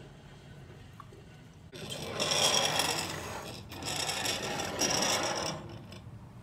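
Two bursts of rough scraping noise, each about two seconds long, with a brief pause between them.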